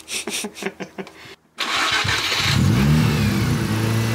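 Mazda RX-7's 13B rotary engine running, its pitch rising over about a second and then holding at a steady raised speed while it sucks water into the intake through a vacuum line to blast out carbon. A man laughs briefly just before the engine comes in.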